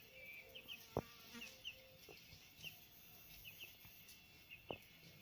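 Faint, quiet garden ambience: a fly or other insect buzzing in the first couple of seconds, faint high double chirps repeating about once a second, and two sharp knocks, one about a second in and one near the end.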